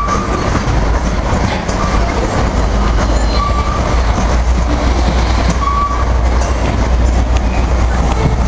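Covered grain hopper cars of a freight train rolling past: a steady rumble of steel wheels on rail, with a few short, high wheel squeals.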